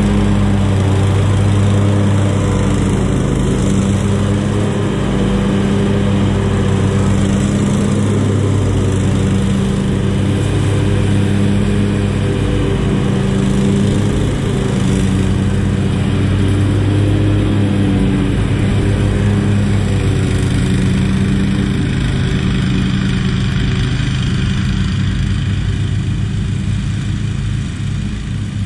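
Zero-turn riding mower's engine running steadily under load while mowing, growing fainter near the end as the mower works farther away.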